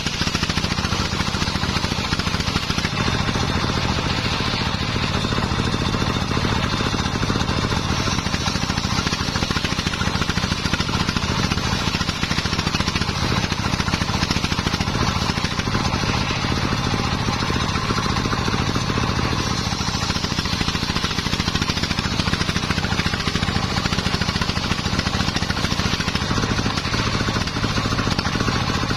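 Homemade belt-driven circular saw bench ripping a waru (sea hibiscus) log lengthwise into battens: the blade cutting steadily through the wood over its drive engine running.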